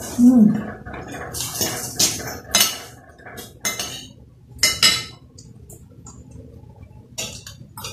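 Spoon and cutlery clinking and scraping on ceramic plates at a meal, in a run of separate short clinks and knocks.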